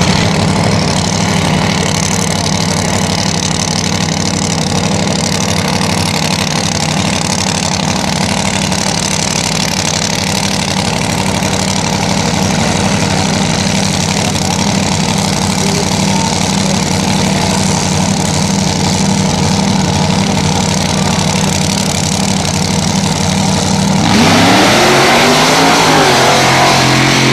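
Drag racing car's engine idling steadily at the start line, then near the end it launches: the engine note climbs and grows louder as the car accelerates away.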